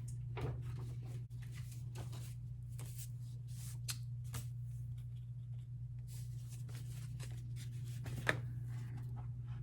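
Paper and card album inclusions being handled: scattered short rustles and light taps, over a steady low hum.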